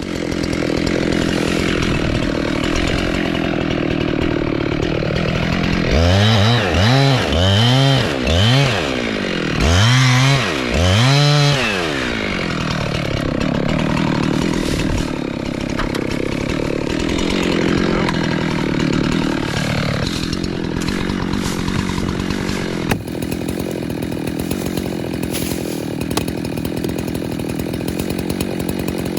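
Jonsered two-stroke chainsaw cutting into a tree trunk while the felling notch is cut. Partway through it revs up and down about six times in quick succession, then settles back to a steady cut.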